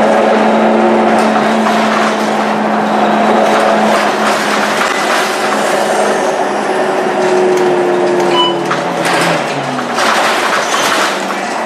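Scania K230UB bus's diesel engine and ZF automatic gearbox under way, heard from inside the cabin: a loud, steady engine hum and whine while the bus pulls. The engine note falls away about nine seconds in, and short knocks and rattles follow near the end.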